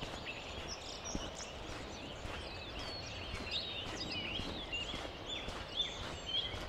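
Small birds singing, with many quick high chirps and warbling notes overlapping, over a steady low outdoor rumble, with soft regular footsteps of someone walking.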